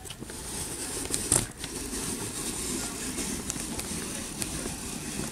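Handling noise as the camera is moved about: a steady low rustle with a few small clicks.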